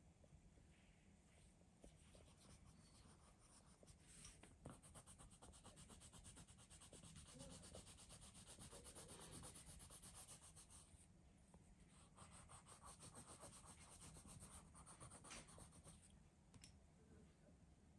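Near silence, with a faint rubbing rasp of fast, even strokes between about four and eleven seconds in.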